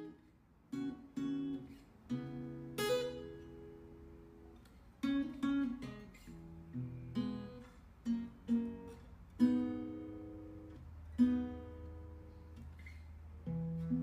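Background music: acoustic guitar playing plucked and strummed chords, each attack ringing out and fading.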